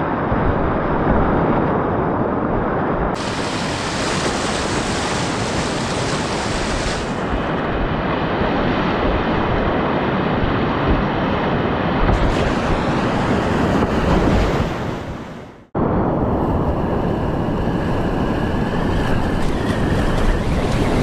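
Loud, steady rush of whitewater with wind buffeting the microphone, heard from a kayak running river rapids. It fades out and cuts off abruptly about three-quarters of the way through, then comes straight back.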